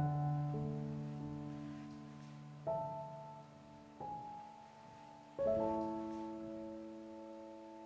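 Soft solo piano background music: slow chords struck a few times, each left to ring and decay, the last one fading out.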